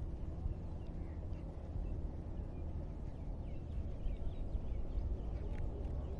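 Low, steady wind rumble on the microphone, with faint short bird chirps in the second half.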